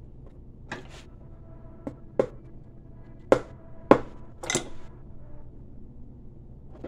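About eight sharp, irregular knocks and clinks, a few with a short metallic ring, from a shoe on an iron last stand being worked on while a new heel block is fitted. The loudest two come about halfway through, over a low shop hum.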